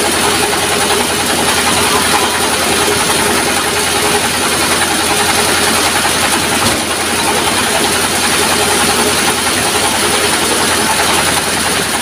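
Stationary diesel engine running steadily, driving a sawmill with no log in the cut yet.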